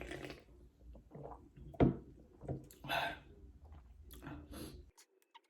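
Scattered eating and food-handling noises: a sharp knock a little under two seconds in, then several short hissy bursts. The sound drops out completely for a moment near the end.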